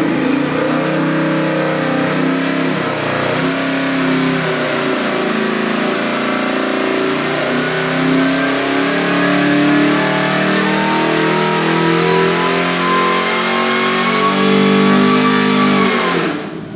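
Supercharged 427-cubic-inch LS V8 with a Whipple 2.9 L supercharger, revving hard under load on an engine dyno during a wide-open-throttle sweep from about 2,800 to 5,800 rpm, with a thin whine rising in pitch above it. Near the end the revs drop and the sound falls away.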